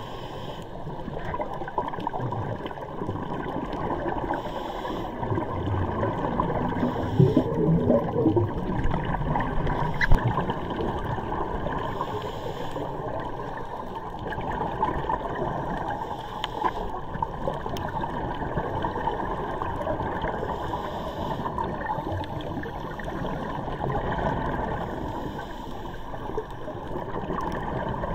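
Muffled, rushing and gurgling water, with a louder burst of bubbling about seven to eight seconds in and a sharp click about ten seconds in.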